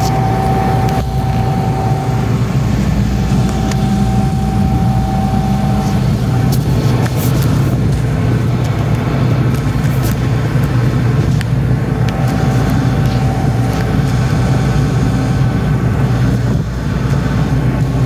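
Combine harvester's engine running steadily, with a few light clicks and knocks.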